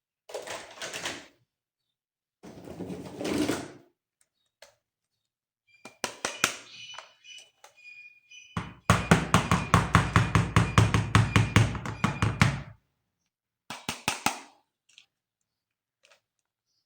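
Plastic toy being handled: two brief rustles, scattered clicks, then a loud, rapid run of clacks, about seven a second, lasting about four seconds, and a few last clicks.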